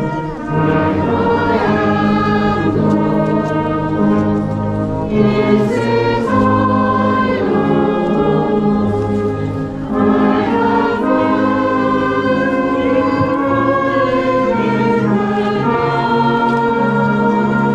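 A congregation singing a hymn together in held, stepwise notes, accompanied by a brass band.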